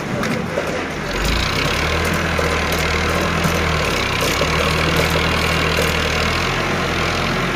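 Diesel engine of a farm tractor with a front loader running steadily as it lifts a bale, its low note shifting a few times as the revs change.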